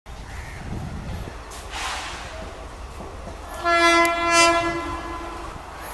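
WAP-4 electric locomotive's air horn sounding one long, steady blast of about two seconds, starting about halfway through, over a low background rumble.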